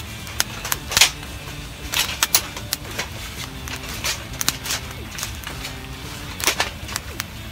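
Young wood fire of split kindling crackling and popping irregularly as it catches, with a few louder knocks of logs being set onto it, about one, two and six and a half seconds in.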